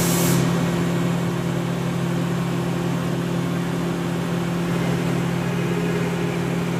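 Mazak Integrex I-150 mill-turn CNC machine running: a steady hum with a hiss of coolant as a small eighth-inch end mill refines the shape of a flintlock tumbler. A short burst of sharper hiss comes right at the start.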